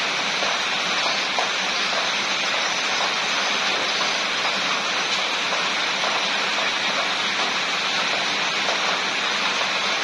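Steady rain, an even hiss with fine scattered drop ticks.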